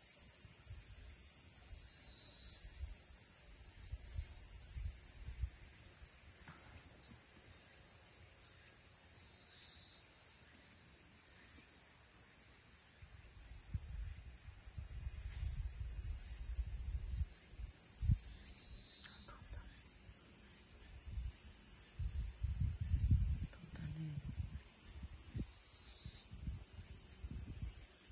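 A steady, high chorus of insects, crickets or cicadas, running without a break. Low rumbling bumps on the microphone come and go, most of them in the second half.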